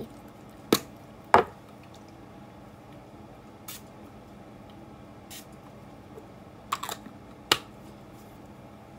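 A plastic body-mist bottle and its snap cap being handled: a handful of sharp clicks and knocks, the two loudest in the first second and a half and a small cluster near the end.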